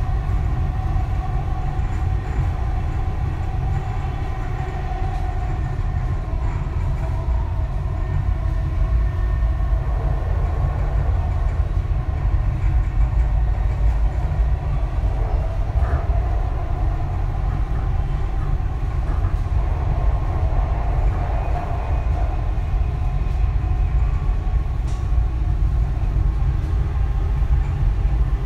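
Dubai Metro train running at speed on an elevated track, heard from inside the front car: a steady deep rumble with a whine that wavers in pitch over it.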